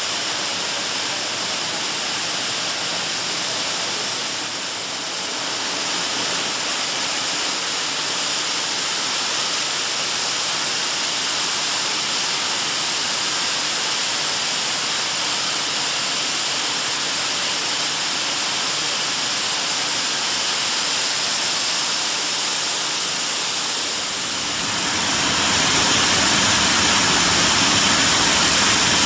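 Plastic bottle washing and recycling line machinery running: a steady, loud hiss and hum of motors, screw conveyors and washers, growing louder with a deeper rumble near the end.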